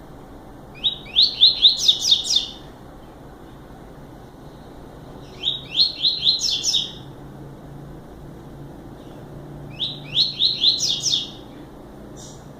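Double-collared seedeater (coleiro) singing the short 'máquina' song type: three phrases, each a fast run of sharp, high, rising notes lasting about a second and a half, spaced about four seconds apart. A faint steady hum sits underneath.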